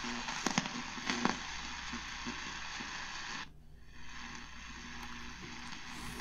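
Eton Grundig Edition Field BT radio on the medium wave band giving steady static hiss with several sharp crackles in the first second or so: static crashes that the listener takes for lightning from nearby storms. The sound drops out briefly about three and a half seconds in as the dial is tuned from 590 to 600 kHz, then the hiss returns.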